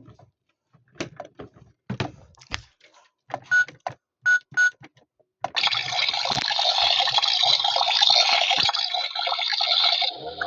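Toy washing machine: a few clicks and knocks, then three short electronic button beeps, followed from about halfway on by a steady rush of running water.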